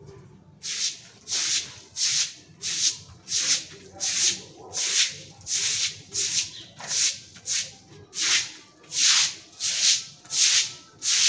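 Stiff bristles of a broom or scrubbing brush scraping over a hard surface in even strokes, about one and a half a second, starting just under a second in.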